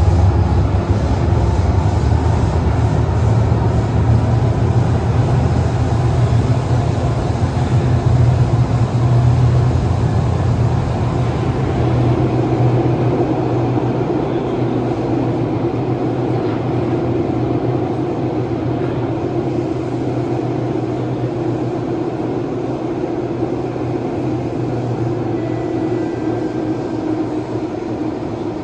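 Interior running noise of a Kawasaki–CRRC Sifang CT251 metro train, heard from inside the car: a steady rumble of wheels on rail with a low hum. The hum fades and the noise gradually gets quieter through the second half.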